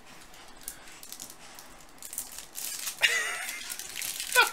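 Foil trading-card packs rustling and crinkling as hands shuffle through a stack of them, louder in the second half.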